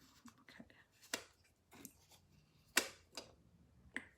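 Packaging being handled and opened: a series of sharp crackles and clicks, about five louder ones spread irregularly among fainter rustles.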